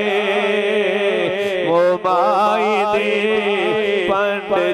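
A man sings a Punjabi naat (devotional song) into a microphone, drawing out long, wavering notes with a short break about two seconds in. A steady low tone runs underneath.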